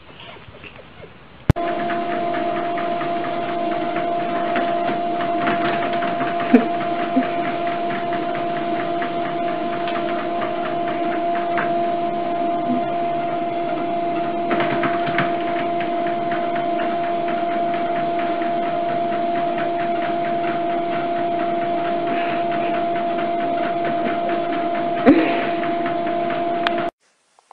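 Home treadmill running: a steady electric motor whine over the whir of the moving belt, with a couple of light knocks as the cat's feet land on the deck. It starts suddenly shortly after the start and cuts off just before the end.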